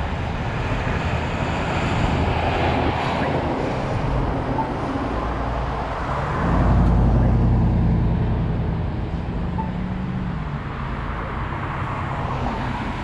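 Steady wind and road rumble on a GoPro carried on a bicycle ride, with a louder low, steady hum for several seconds about halfway through.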